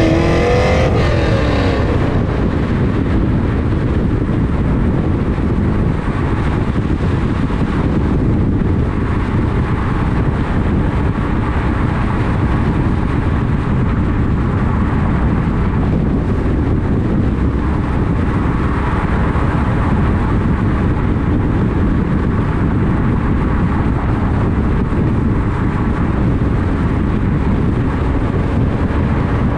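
2001 C5 Corvette's 5.7-litre V8 through a Corsa exhaust with long-tube headers, its pitch rising and falling through the first couple of seconds. It then settles into a steady rush of wind and tyre noise at cruise, with the engine low underneath.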